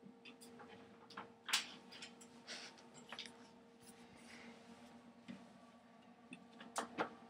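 A few light clicks and taps at irregular intervals, the sharpest about a second and a half in and two close together near the end, over a faint steady hum.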